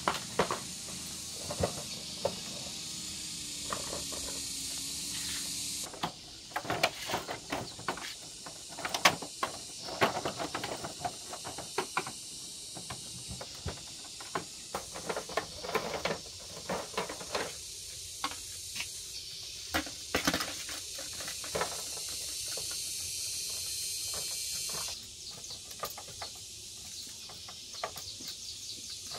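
Scattered clicks, knocks and light rattles from hands working on an Angel 100 underbone motorbike's plastic body panels and fittings, over a steady high hiss that drops out and comes back a few times.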